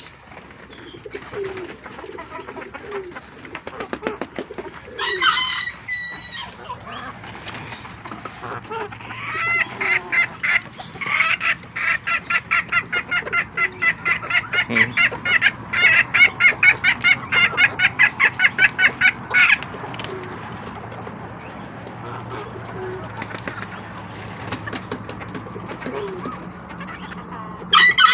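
Birds calling at feeding time: soft low pigeon cooing, then a long rapid series of short pitched calls, about four a second, for roughly ten seconds in the middle. A louder pitched call comes near the end.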